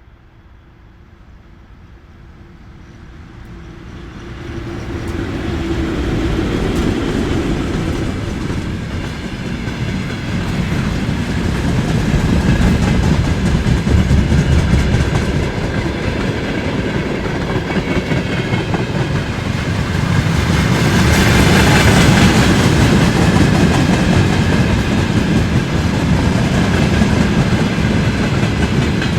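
Freight train hauled by a VL10 electric locomotive approaching, growing steadily louder over the first five or six seconds. Then the wagons roll past close by, with a continuous clickety-clack of wheels over the rail joints.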